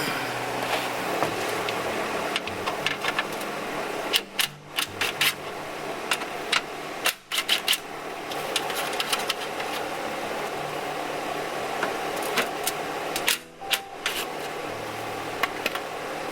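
Clusters of sharp clicks and light knocks of tools and fasteners as the undertray's oil pan access cover is taken off, over a steady background hum.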